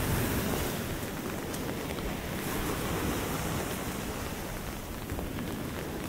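Storm surf washing onto a beach in a steady, dense rush, loudest about the first second and easing a little after, with wind.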